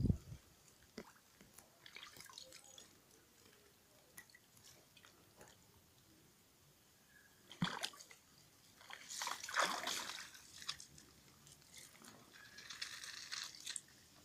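Water splashing and sloshing in a plastic paddling pool as a corgi moves about in it, with small drips and clicks, a sharp knock, then louder splashing past the middle.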